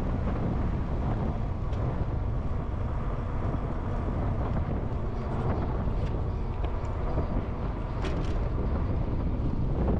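Wind buffeting a GoPro's microphone during a bike ride, a steady low rumble mixed with tyre and road noise, with a few faint clicks about two, six and eight seconds in.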